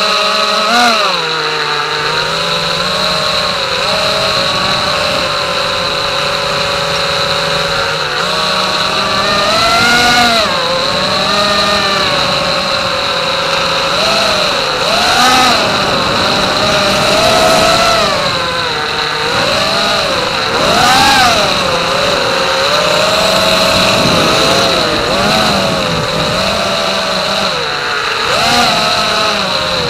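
FPV racing quadcopter's four Racerstar BR2307S 2500KV brushless motors spinning DalProp Cyclone T5045C five-inch three-blade props, heard from a camera on the quad itself: a loud whine whose pitch swoops up and down with every throttle punch and turn, just after takeoff. A steady high tone runs underneath throughout.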